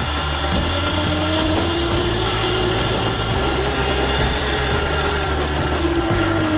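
Candy electric dirt bike on the move: its motor whines, rising in pitch as it speeds up and falling away near the end, over a steady mechanical rattling and grinding that the rider calls an awful noise.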